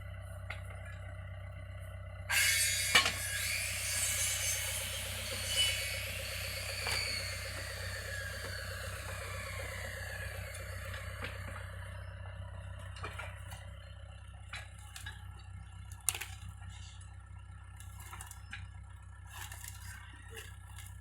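A heavy machine's diesel engine idling steadily. About two seconds in, a loud scraping, hissing noise starts suddenly and fades out over about ten seconds, followed by scattered metallic clicks and knocks.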